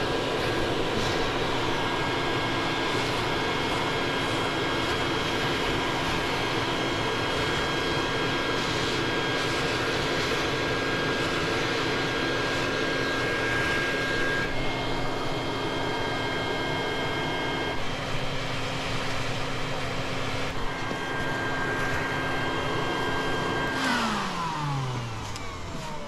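Shop vacuum rigged as a bee vacuum, running steadily with a whine while it sucks honeybees off the wood through its hose; the pitch shifts slightly a few times as the load on the hose changes. Near the end it is switched off and the motor winds down, the whine falling in pitch.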